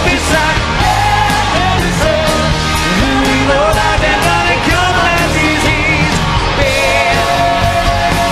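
Live rock band in full swing: a male lead singer over electric guitar, bass and a steady drumbeat.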